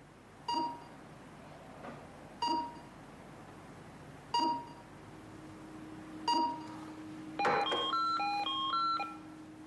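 An electronic beep sounding four times, about every two seconds, followed by a quick run of beeps stepping up and down between different pitches. A faint low steady tone hums underneath from about halfway.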